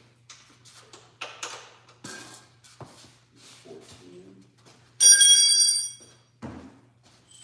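Light clicks and knocks of parts and tools being handled, then, about five seconds in, a sudden loud metallic ring that dies away over about a second.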